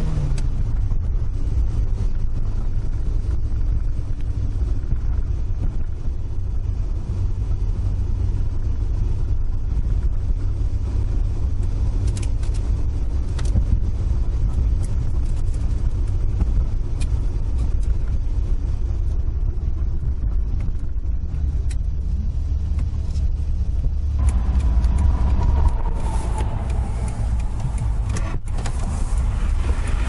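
Toyota AE86 Corolla driving at steady speed on an expressway: a constant low engine and road rumble. A short falling whine comes about four-fifths of the way through.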